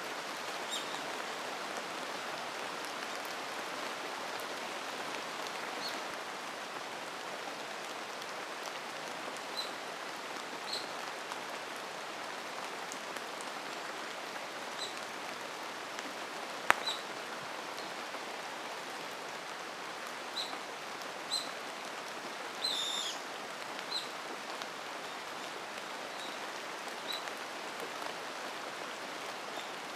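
Steady rain falling in a mountain forest, with scattered short, high bird chirps throughout and a brief warbling call about two thirds of the way in. A single sharp click stands out about halfway through.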